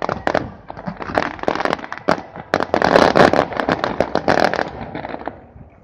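Aerial fireworks shells bursting in rapid succession, a quick run of sharp bangs and crackles that packs densest in the middle and dies away near the end.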